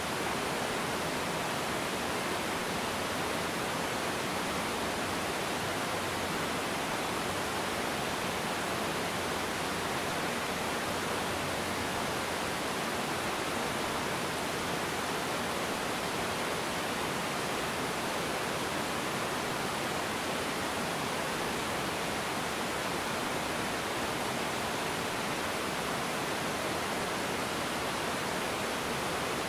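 A small river waterfall: water pouring and splashing over rocks in a steady, unbroken rush.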